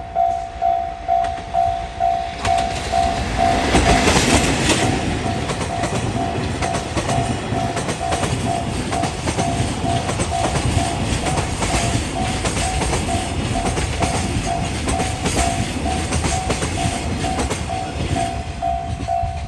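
Japanese level-crossing warning bell ringing in a steady two-note beat while an ED76 electric locomotive hauling a freight train passes close by, loudest about four seconds in, followed by the freight wagons' wheels rumbling and clacking over the rail joints.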